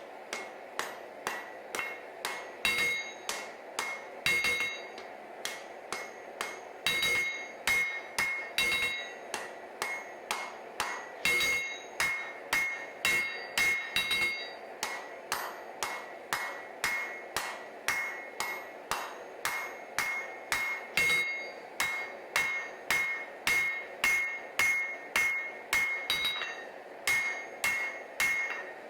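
Hand hammer forging hot twist-pattern Damascus steel on an anvil: steady blows about two a second, each with a bright ring from the anvil, in long runs with a couple of short pauses.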